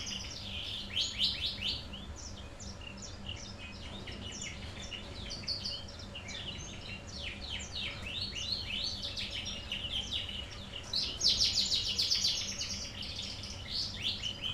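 Kept songbird singing a fast, varied song of chirps and rapid trills, with the densest trilling about eleven seconds in.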